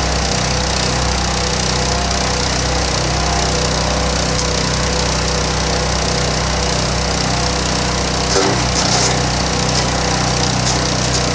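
Hecht 6208 petrol wood chipper running steadily at speed. About eight and a half seconds in, the engine briefly bogs under a louder crackling burst as wood is fed in and chipped.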